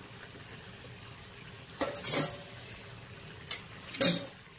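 Stainless steel colander and pot clanking together: four short ringing metal knocks, two close together about two seconds in and two more near the end.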